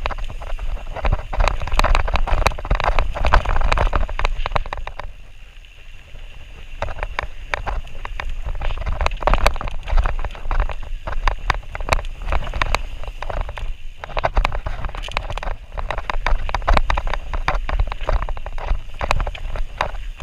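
Mountain bike descending fast on dry, rocky dirt singletrack: tyres on loose dirt and the bike rattling and clattering over rocks, with wind rumbling on the microphone. It eases to a quieter stretch about five seconds in, then the rattling picks up again.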